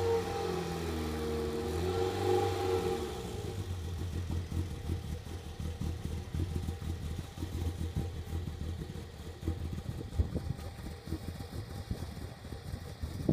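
A few seconds of music fade out, then a VIS pickup's small petrol engine runs at idle with an uneven, low note.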